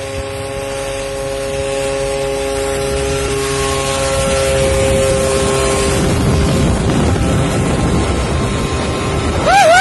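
Homebuilt ultralight airplane's engine and propeller running steadily as it takes off, a droning tone that fades about six seconds in under a rushing noise that keeps growing louder. Near the end a person gives a loud, high shout.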